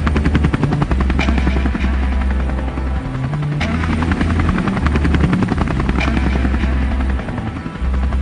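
Background music with a low, stepping synth bass line under a fast, even pulsing rhythm.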